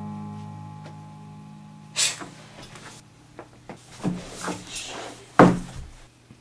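A held musical chord fades out over the first two seconds. Then come several sharp knocks and bumps, the loudest about five and a half seconds in.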